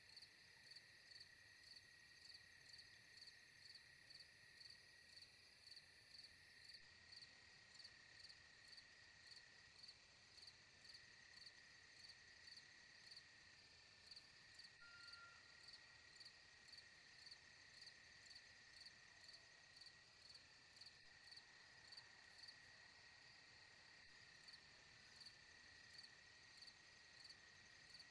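Faint insect chirping: an even, high chirp repeating about twice a second over a steady high trill.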